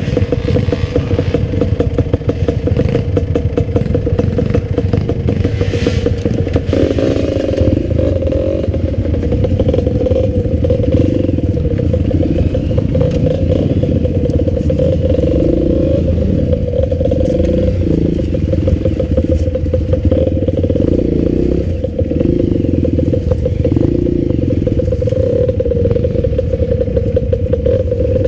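Enduro dirt bike engine running steadily under way, its pitch stepping up slightly about seven seconds in.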